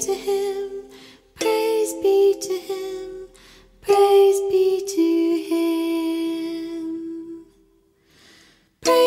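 A woman singing a soft wordless melody over chiming notes from a small handheld wooden box instrument, in phrases with a short pause about eight seconds in.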